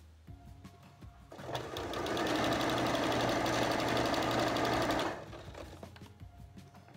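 Janome electric sewing machine stitching through several layers of fabric: it starts about a second and a half in, picks up to a fast steady run for about three seconds, then stops.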